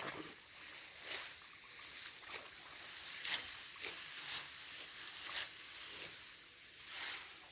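Rice stalks rustling and crunching in repeated sharp strokes during a manual rice harvest, roughly one stroke a second.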